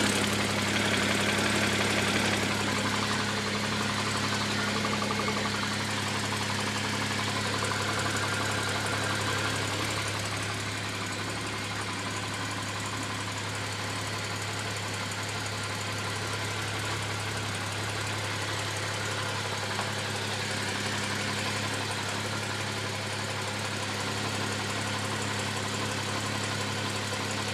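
Toyota 1G-GE straight-six engine running steadily, not revved, with a knock coming from the engine; the engine is a little louder for the first ten seconds or so, then settles.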